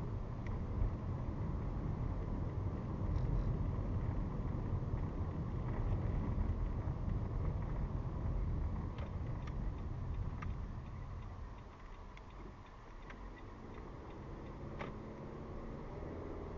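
Car driving, heard from inside the cabin: a steady low rumble of engine and tyre noise that drops off about twelve seconds in as the car slows, with a few faint clicks.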